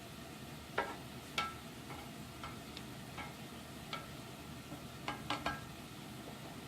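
Squid cooking on an electric grill: a faint steady sizzle with about ten sharp clicks and pops, three of them close together about five seconds in.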